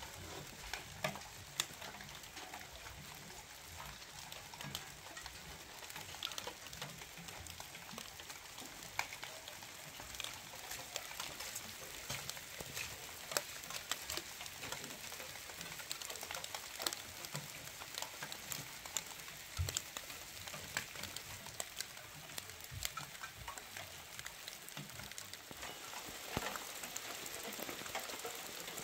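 Light rain pattering on surfaces: a steady soft hiss dotted with many small drop ticks.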